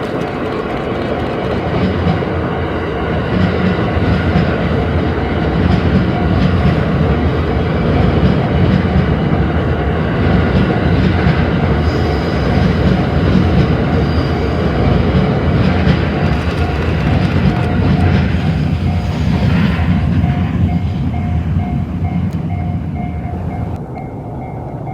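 A train running past on the rails, with a steady heavy rumble and wheel clatter; the noise eases off near the end.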